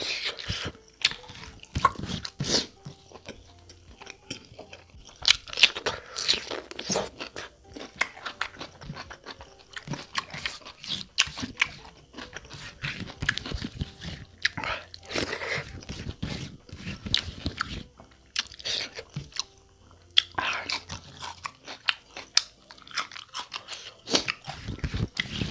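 Close-up chewing and biting of mouthfuls of mutton curry and rice eaten by hand, in irregular bursts of wet mouth noises and clicks.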